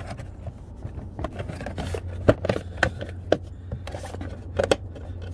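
Plastic door sill trim panel being pried loose with a trim pry tool: scraping and rattling of plastic, with several sharp clicks as its retaining tabs pop free.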